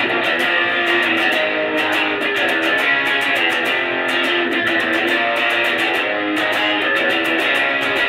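Electric guitar strummed fast and continuously through a small Fender combo amp, playing chords with rapid pick attacks.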